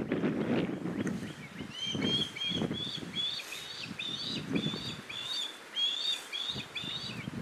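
Osprey fledgling begging: a fast run of short, high, down-slurred chirps, several a second, starting about two seconds in and running on almost to the end. Low rumbling noise lies underneath and is strongest at the start.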